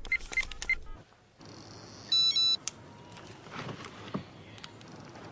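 Mobile phone keypad beeping several times in quick succession as a text message is typed. After a short gap, a brief electronic text-message alert tone sounds from another phone, the loudest sound.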